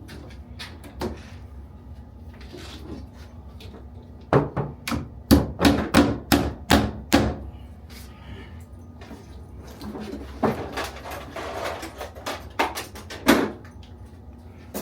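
Hammer striking in quick runs of sharp blows: about eight in a row from about four seconds in, then another run a few seconds later.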